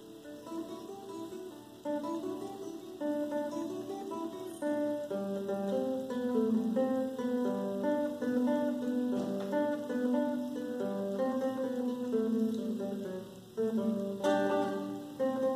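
Classical guitar played solo, a melody of plucked single notes over moving bass notes; after a brief dip, a full chord is struck near the end.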